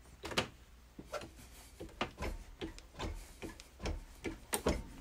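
Irregular metallic clicks and knocks, about three a second, as an adjustable wrench bends a fused TIG-welded steel test piece, welded without filler rod, back and forth in a bench vise, working the weld toward breaking.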